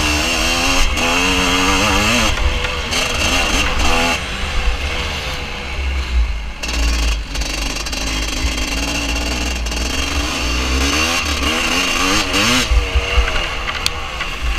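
Vintage motocross motorcycle engine revving hard and easing off again and again, its pitch climbing and falling several times, with wind rumbling on the microphone.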